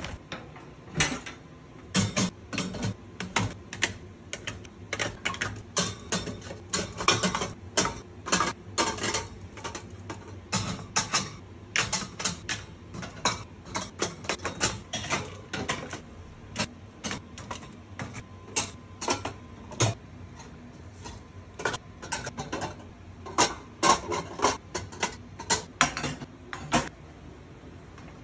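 Quick, irregular clacks and taps of tin cans and groceries being handled and set down on metal wire pantry shelves, several knocks a second.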